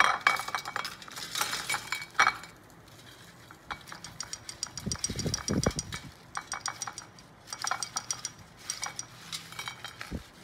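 Freshly air-fried French fries tumbling out of the air fryer's slotted basket onto a ceramic plate: rapid runs of light clicks and clinks as fries and basket knock against the plate, with a quieter spell a couple of seconds in and a few dull thumps around five seconds in.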